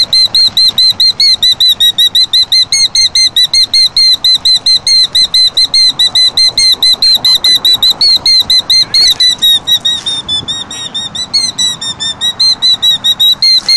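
Killdeer calling in alarm: a loud, fast, unbroken string of shrill notes, about five or six a second, given by a parent bird defending its nest from a person standing close by.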